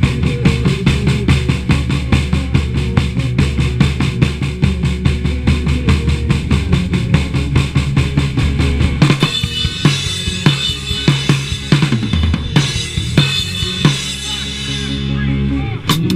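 Live rock band jamming, heard loud through a chest-mounted action camera's microphone: drum kit and bass drive a fast, steady beat, then about nine seconds in the band breaks into a stretch of separate drum hits and cymbal crashes before the full beat comes back in near the end.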